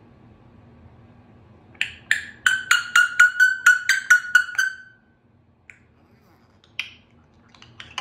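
Congo African grey parrot making a quick run of about a dozen short notes at one steady pitch, some five a second, starting about two seconds in, followed by a few single clicks near the end.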